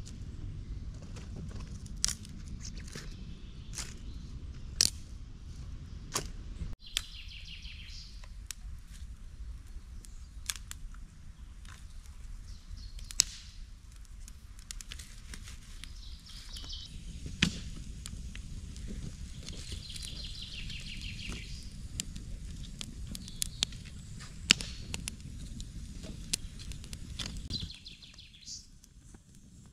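Wood campfire of stacked sticks burning, with sharp crackles and pops at irregular intervals over a low steady rush. Birds sing in short bursts at several points.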